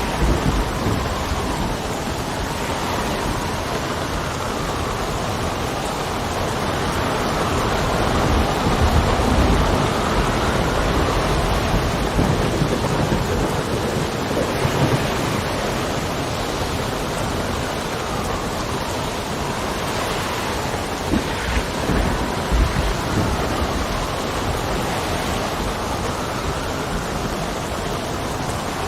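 Steady heavy rain with gusting wind that whistles faintly, and low rumbles of thunder swelling about a third of the way through and again past two-thirds.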